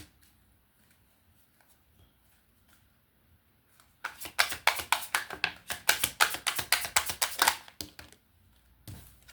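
Tarot cards being shuffled by hand: a quick run of soft card slaps lasting about four seconds, starting about four seconds in.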